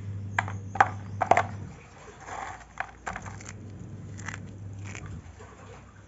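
Dry clay flakes snapping and crunching as fingers break and crumble them: a series of sharp cracks, the loudest about a second in, then a few scattered ones.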